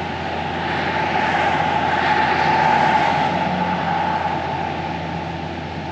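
Steady engine hum heard from inside a parked truck's cab, with a rushing noise that swells over a few seconds and then fades.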